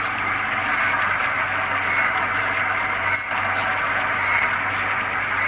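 Surface grinder grinding a cast-iron brake disc: the steady hiss of the wheel cutting the disc face over the hum of the motor, swelling about every two seconds as the table carries the disc back and forth under the wheel.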